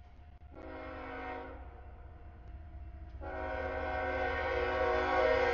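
CSX freight locomotive's air horn sounding a chord as it comes up to a grade crossing: a blast of about a second, then a longer blast of about two and a half seconds near the end, growing louder as the train approaches. Beneath it runs the low rumble of the moving train.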